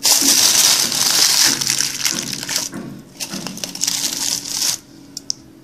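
Aluminium foil being crumpled and pressed by hand around the rim of an instant noodle cup: a loud, continuous crinkling in two stretches with a short break about three seconds in, stopping near the end.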